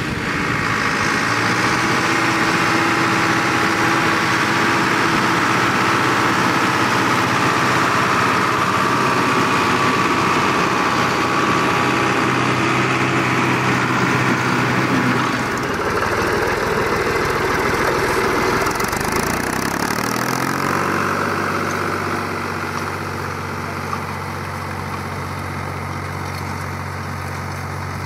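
Zetor Proxima tractor's diesel engine running under load, mixed with the clatter and whoosh of a Mengele manure spreader's beaters throwing out manure. About twenty seconds in the sound settles into a quieter, steady engine note.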